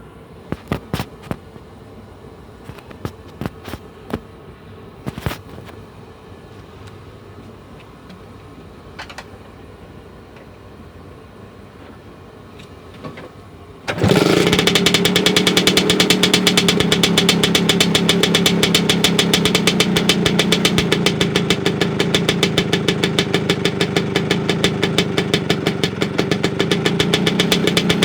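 A few clicks and knocks, then about halfway through the Vespa PX 125's single-cylinder two-stroke engine starts suddenly and settles into a steady idle, its Revolver aftermarket exhaust giving a fast, even popping beat.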